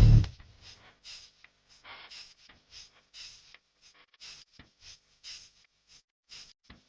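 A person chewing mussels close to the microphone: soft wet mouth sounds repeating about twice a second, after one low thump at the start.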